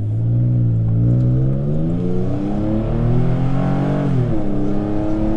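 2006 Nissan Frontier's V6 at full throttle, heard inside the cab through a new aftermarket stainless cat-back exhaust and catalytic converters. The engine note rises steadily, drops sharply about four seconds in as the transmission shifts up, then starts rising again.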